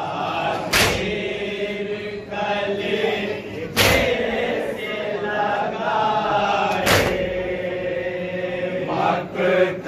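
A group of men chanting a noha, a Shia mourning lament, in unison. The crowd's matam strikes in time with it: hands slapped together on chests in one sharp beat, three times, about three seconds apart.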